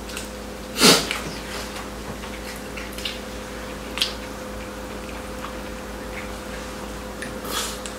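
Close-miked eating sounds of people eating soy-braised chicken: one loud, wet mouth sound about a second in, then a few soft clicks over a faint steady hum.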